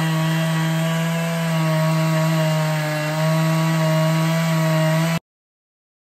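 Large two-stroke chainsaw running steadily under load in a chainsaw mill, ripping an oak log lengthwise into planks. The sound cuts off abruptly about five seconds in.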